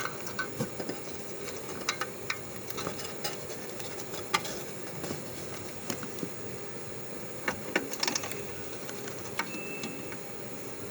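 Scattered small clicks and taps of hands handling a fire alarm panel's display board and ribbon cable, over a steady low background hum.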